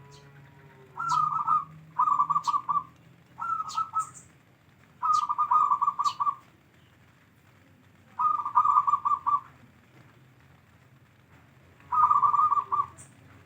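Zebra dove (perkutut) cooing: six phrases of rapid staccato coos, each about a second long, with pauses of one to three seconds between them.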